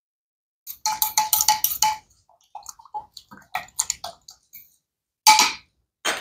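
A spoon clinking against a container as sugar is stirred into yeast and warm water: a fast run of ringing clinks about a second in, lighter scattered taps, then two short, louder scraping strokes near the end.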